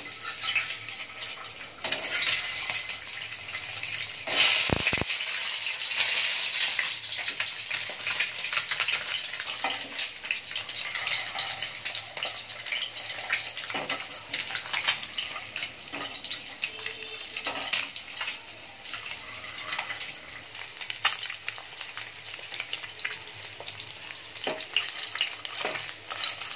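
Peeled hard-boiled eggs sizzling as they shallow-fry in hot oil in a pan, with clicks and scrapes of a metal utensil turning them. A sharp, louder burst about four seconds in.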